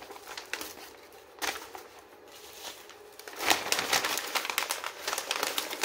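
Brown paper parcel wrapping being handled and torn open, with faint scattered crackles at first, then loud, dense crinkling and rustling from about three and a half seconds in.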